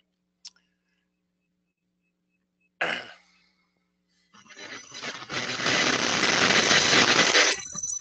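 Static over a video-call audio line from a participant's open microphone: a faint click, a sharp burst about three seconds in, then a loud rushing hiss from about halfway that cuts off suddenly near the end.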